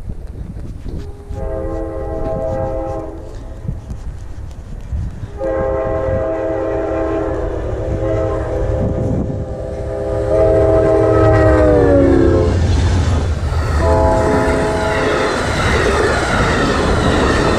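Amtrak passenger train sounding its horn in three blasts as it approaches at speed: a short one, a long one whose pitch drops near its end as the locomotive passes, then another. The rush and clatter of the passenger cars going by builds up in the second half.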